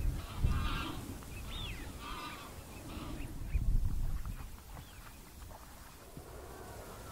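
Waterfowl calling from the marsh: a run of short honking calls over the first four seconds and one thin rising-and-falling whistle. Wind buffets the microphone in two low gusts.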